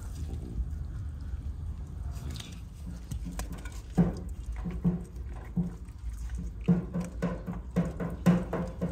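A dog chewing food taken from a hand, with an irregular run of short bites starting about four seconds in.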